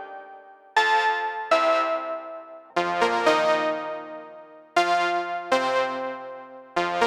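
Waldorf M synthesizer playing a soundset patch: about seven chords struck one after another, each starting sharply and fading away.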